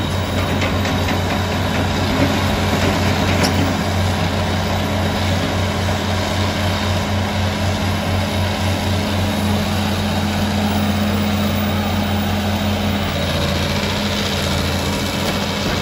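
Old tracked hydraulic excavator's diesel engine running steadily under load as the machine lifts and swings a large log, a deep, even hum; its note shifts about thirteen seconds in.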